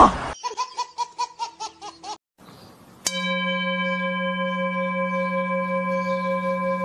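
A quick run of short pitched chirps, about six a second, lasting about two seconds. After a short pause, a steady held tone with several overtones starts abruptly and runs on unchanged without dying away.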